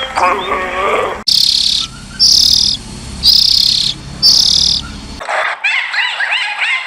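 High-pitched animal chirping: four buzzy chirps about a second apart, then a rapid run of short, quick chirps near the end.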